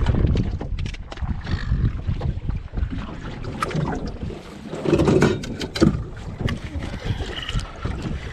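Wind buffeting the microphone aboard a small fishing boat, a steady low rumble, with scattered sharp knocks and clicks, busiest in the middle.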